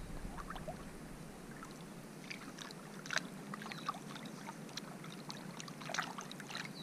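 Small splashes and drips of water as a hand dips a freshly caught bass into the shallows at the bank, with slightly louder splashes about three seconds in and near the end.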